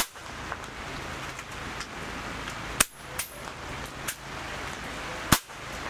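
Air rifles firing along a benchrest line: two loud, sharp shots about two and a half seconds apart, with fainter single shots between them, over steady background noise.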